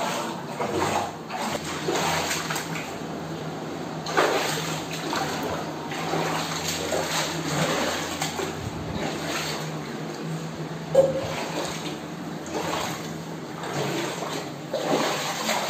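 Bare feet wading through shallow floodwater on a tiled floor, the water sloshing and splashing irregularly with the steps.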